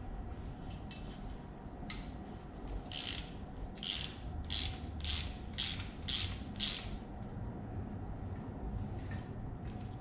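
Hand ratchet wrench clicking in short rasping strokes, about seven of them roughly half a second apart in the middle, with a few fainter clicks before: backing out exhaust manifold bolts on a Ford 302 V8.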